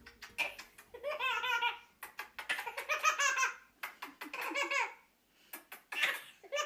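A baby laughing in four long bursts with short pauses between.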